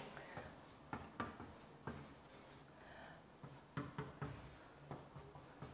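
Handwriting: a run of short, irregular scratching strokes and light taps.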